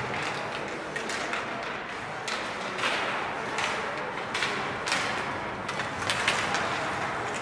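Hockey play: a string of irregular sharp knocks and short scrapes, about a dozen, over a steady background hiss.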